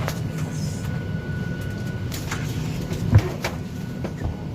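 Steady low hum of a parked Boeing 737-800's cabin ventilation during boarding, with a faint steady high tone, scattered clicks and one loud thump about three seconds in.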